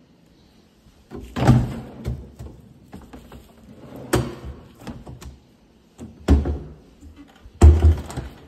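Wooden kitchen sink-base cabinet being worked: its pull-out trash bin slid on its wire rack and the cabinet doors shut, giving four thumps, the last one loudest, with rattling and handling between them.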